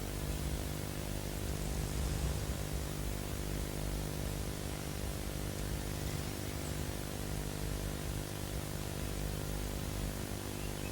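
Steady hiss with a low electrical hum underneath, with no distinct event standing out.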